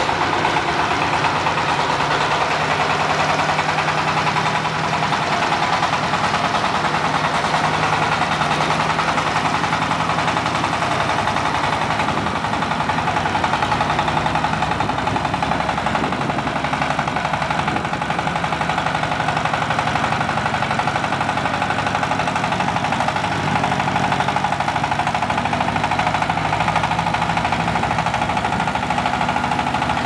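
Single-cylinder diesel engine of a crawler guardrail pile driver running steadily with a fast, even pulsing beat while the machine drives on its tracks.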